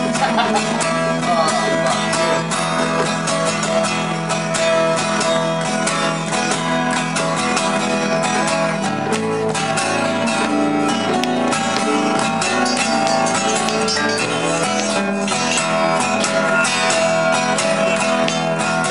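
Guitar strummed in a steady rhythm, with sustained chords.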